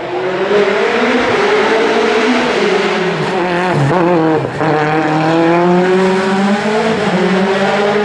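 Lancia Delta HF Integrale Evo rally car's turbocharged four-cylinder engine accelerating hard, its pitch climbing and falling through gear changes, with a sharp dip about four and a half seconds in.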